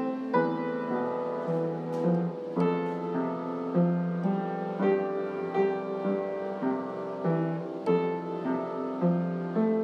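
Background piano music: a slow melody with notes struck in a steady, even pulse.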